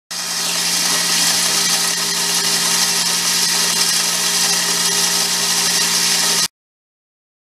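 Warn 3,000-pound ATV winch's electric motor running steadily, reeling steel cable onto the drum: a steady whir over a low hum. It starts at once and stops suddenly about six and a half seconds in.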